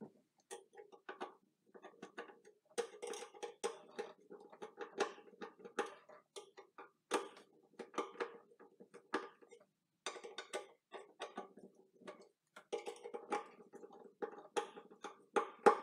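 Screwdriver tightening the mounting screws of a garbage disposal's sink-mount ring: light, irregular clicks and ticks of the tool and screws working against the ring, with short pauses between turns.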